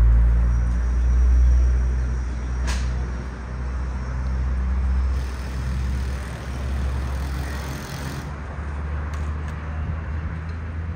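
Low, steady engine rumble of a motor yacht moving slowly through the harbour, fading gradually as it draws away. One sharp click about three seconds in.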